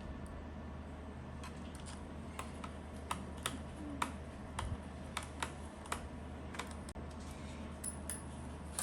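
Irregular small clicks and taps, about one every half second, of a screwdriver and small screws being driven back into a laptop's underside.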